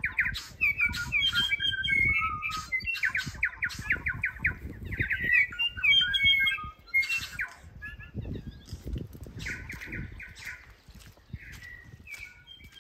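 Wild birds singing and calling, with rapid runs of repeated notes and short squawks, over a low wind rumble on the microphone.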